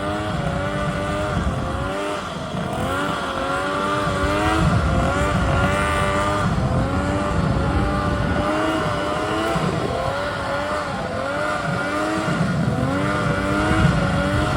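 An off-road vehicle's engine running at high revs, its pitch wavering gently up and down, over a low rumble.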